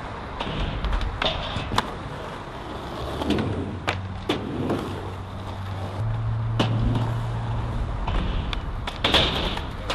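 Skateboard wheels rolling on concrete, with several sharp clacks of the board striking the ground. A low steady hum runs underneath from about three seconds in until about eight seconds in.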